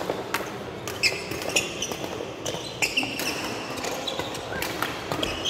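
Badminton rally: sharp smacks of rackets hitting the shuttlecock at irregular intervals, with short squeaks of court shoes on the floor.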